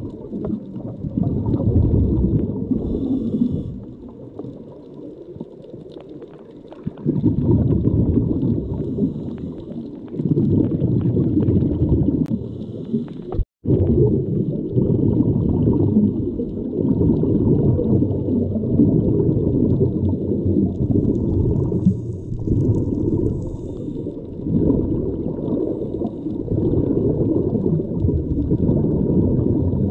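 Muffled underwater water noise picked up by a GoPro camera while snorkeling, rising and falling in surges a few seconds long. It cuts out for a moment about halfway through.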